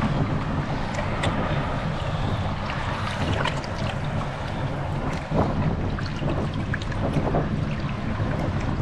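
Small boat at sea: wind buffeting the microphone over a steady rush of water around the hull, with a few small splashes and knocks.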